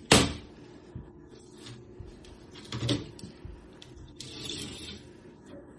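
Knocks and rustling from a screen door being worked on: a sharp knock just at the start, a smaller knock about three seconds in, then a scraping rustle about four seconds in.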